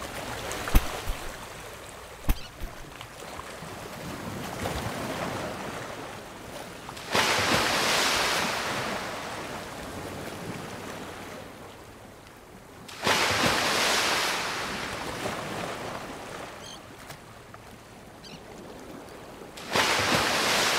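Ocean waves washing in, with three big swells about six seconds apart, each coming in suddenly and fading slowly. There are two sharp clicks near the start.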